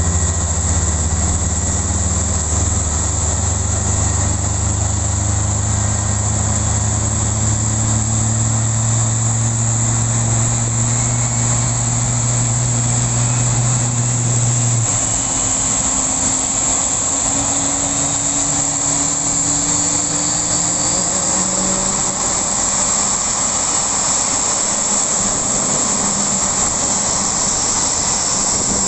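Steady turbine noise from an Airbus A350-900: a loud high hiss with a low hum under it. The hum drops away about halfway through, and fainter tones shift in pitch after it.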